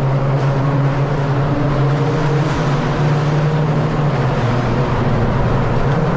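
Volkswagen Polo engine and exhaust running with a steady, loud drone whose pitch shifts slightly up and down a few times.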